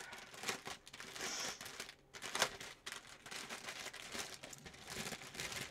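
Clear plastic packaging bag of diamond-painting drill packets being handled and turned over, crinkling with irregular crackles and a few sharper snaps.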